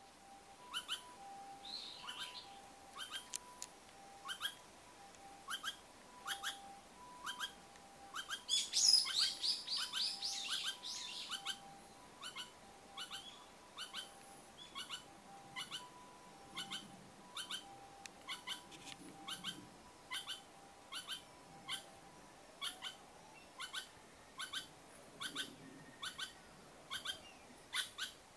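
A Pallas's squirrel calling over and over, short sharp calls about one and a half a second, evenly spaced throughout. A bird sings loudly over it for a couple of seconds around nine seconds in.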